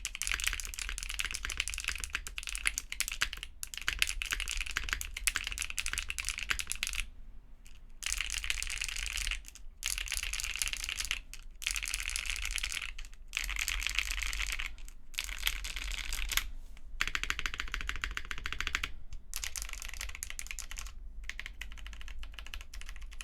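Continuous typing on a TGR Tomo 75% mechanical keyboard with KTT Matcha tactile switches, GMK ABS keycaps, a polycarbonate plate and case and plate foam: a dense clatter of keystrokes. It breaks off briefly every couple of seconds, with a longer pause about seven seconds in.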